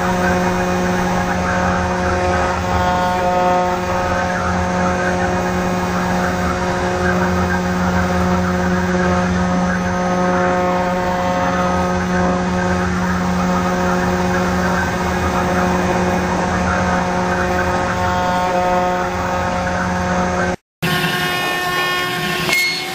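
CNC router spindle running steadily with its bit carving a relief into MDF: a constant motor hum with several held tones over rough cutting noise. About 21 seconds in the sound cuts out for a moment and comes back with a different tone.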